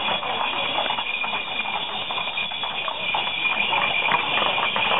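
Hooves of several ridden horses clopping at a walk on a paved street, an irregular stream of knocks, over a steady high ringing.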